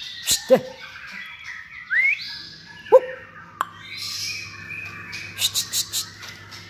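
Caged young songbird singing in scattered phrases: whistled notes that glide up and down, with a quick run of sharp clicking notes near the end.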